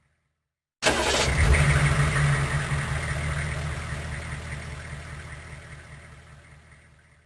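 Big truck engine running with a low rumble, cutting in suddenly about a second in with a brief bright hiss, then fading out slowly.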